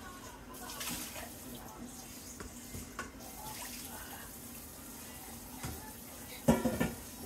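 Tap water running into a stainless steel sink as a cheesecloth nut-milk bag is wetted, with a loud clunk about six and a half seconds in.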